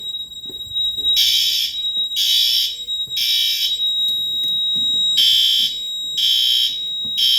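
Fire alarm horns sounding the temporal-three evacuation pattern: three short, loud blasts about a second apart, a longer pause, then three more. A steady high-pitched tone comes in partway through and keeps sounding under the blasts.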